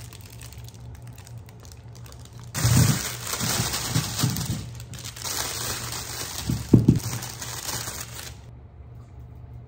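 Plastic bag crinkling as a bagful of carrots is tipped out, the carrots tumbling into a metal mesh colander with several dull thumps. The rustling starts a few seconds in, and the loudest knock comes shortly before it stops.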